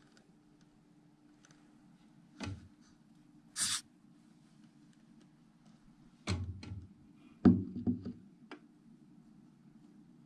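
Handling noises while feeding: a few sharp knocks and taps, the loudest in two clusters past the middle, and one short scrape about three and a half seconds in, over a faint low steady hum.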